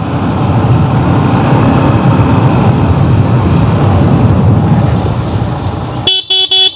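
Yamaha MT-15's single-cylinder engine running while the bike is ridden along a lane, with road and wind noise. Near the end three short high-pitched beeps sound in quick succession.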